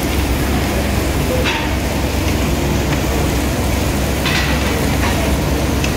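Meat sizzling on a tabletop Korean barbecue grill over a steady low rumble, with a couple of light clicks about one and a half and four seconds in.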